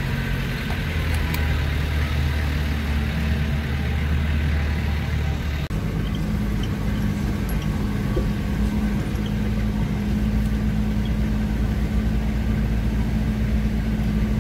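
A 4x4's engine running steadily at low road speed, heard from inside the cab on a rough dirt track. The engine note changes abruptly, with a brief dip in loudness, a little before halfway.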